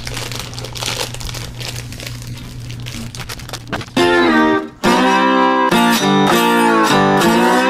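Plastic bags of LEGO pieces crinkling as they are cut and torn open. About four seconds in, loud background music with plucked guitar comes in.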